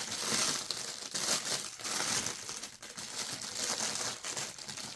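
Packaging crinkling and rustling as it is handled, an irregular run of crackly rustles while items are taken out of the box.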